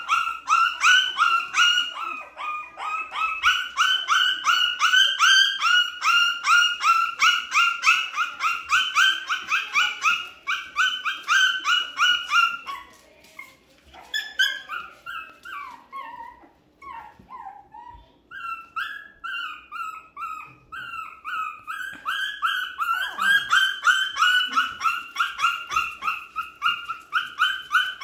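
Month-old Shih Tzu puppies whining in fast, repeated high-pitched cries, about three or four a second. The cries thin out to scattered, wavering whimpers about halfway through, then pick up again in the last few seconds.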